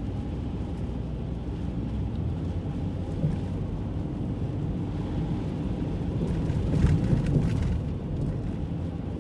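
Steady low rumble of tyre and wind noise inside a car's cabin while driving on a snow-covered highway in blowing wind, with a few louder thumps about seven seconds in.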